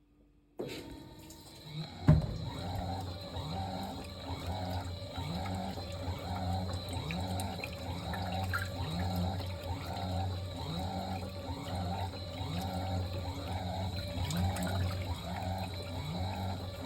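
Fisher & Paykel MW059NZ washing machine starting up, with water running in and the wash action going back and forth in a regular rhythm about once a second over a steady motor hum. It comes on suddenly, with a single knock shortly after.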